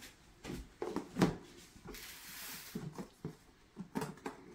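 A lid being fitted onto a bowl of floured squash slices: a few soft, irregular knocks and clicks, with a brief soft hiss about two seconds in.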